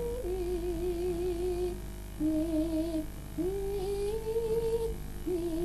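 A sinden, a female Javanese gamelan singer, sings a slow melodic line into a microphone in a few long held notes with a wavering vibrato, breaking briefly twice.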